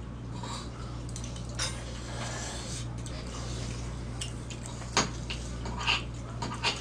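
Metal spoons and chopsticks clinking and scraping against stone pots and small dishes as people eat, scattered light clicks with one sharper clink about five seconds in.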